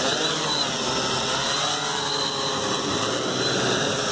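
Blade Chroma quadcopter's four electric motors and propellers whirring on the ground, the pitch wavering, as it fails to lift off on a nearly drained battery.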